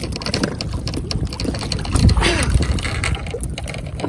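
Steady low rumble of wind and water around a Sea-Doo jet ski, with a short voice about two seconds in.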